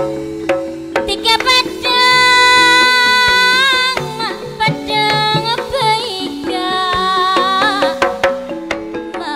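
A woman singing a gending through a microphone, holding long notes that waver and bend at their ends, starting about two seconds in. Band accompaniment with steady hand-drum strokes runs underneath.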